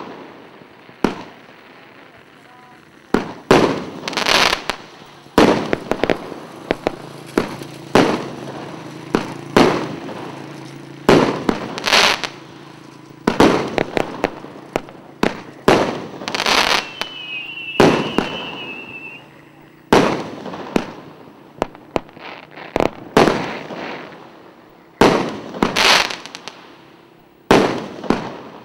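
A 114-shot consumer firework cake with 25 and 30 mm tubes, firing shot after shot. It gives a long, irregular run of sharp bangs, roughly one or two a second, as each tube launches and its shell bursts into stars.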